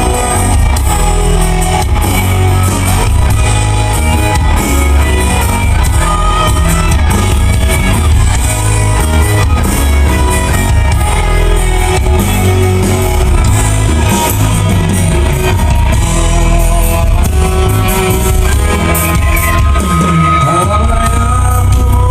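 Indonesian rock band playing a song live and loudly through a concert PA, with electric guitar, bass and drums, and some singing.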